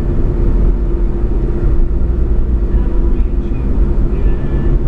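Car being driven: steady engine and road rumble with a constant drone.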